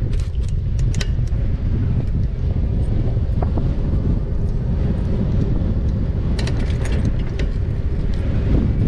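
Wind rumbling on the microphone and tyre noise from an e-bike riding along a tarmac road, with short clusters of rattling clicks near the start and again about six to seven seconds in.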